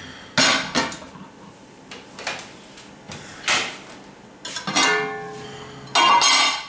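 Hot aluminium cooking pot and its aluminium lid clanking on a stone countertop: several separate knocks as the pot is set down, then the lid rings out as it is handled and lifted off near the end.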